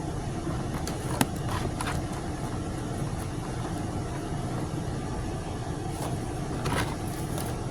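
A steady low background rumble of some motor, with a few light clicks and taps as plastic kit pieces are handled and fitted together.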